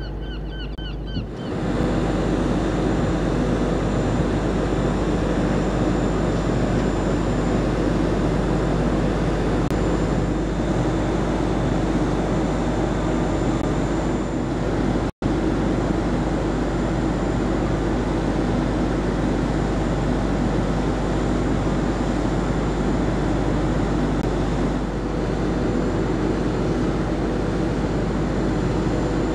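Steady machinery drone of a large passenger ferry under way, heard from its open deck: a hum with several held tones over an even rushing noise.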